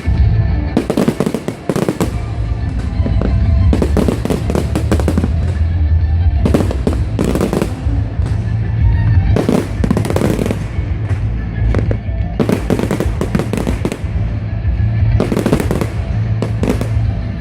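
Fireworks display: aerial shells bursting in clusters of sharp bangs and crackles every few seconds, over a continuous low rumble.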